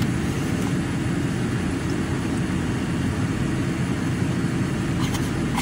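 Car air conditioning blowing with the engine running, a steady hum heard inside the car's cabin.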